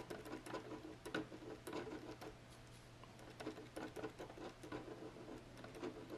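Faint, quick, irregular taps and scratches, several a second, from a slice tool's blade flicking short dashes across hot-press watercolour paper. The blade bounces on the paper as it scratches wiry fur texture into layers of coloured pencil.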